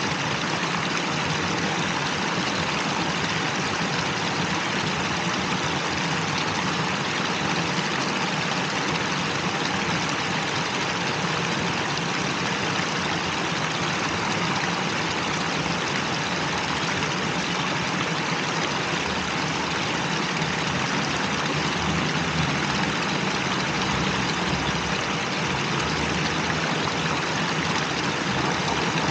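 Water from a plaza fountain's wall jets falling into its basin: a steady, even splashing hiss.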